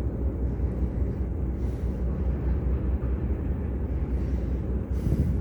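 Steady low rumbling noise with no distinct events, heaviest in the bass.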